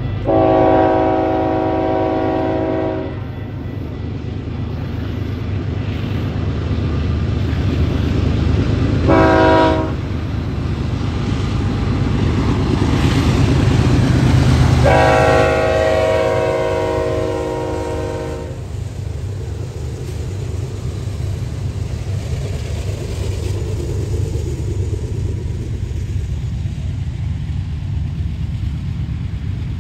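BNSF freight diesel locomotives sound a multi-tone air horn three times, long, short, long, while their engines run past, loudest near the middle. After that comes a steady rolling noise of autorack freight cars' wheels on the rails.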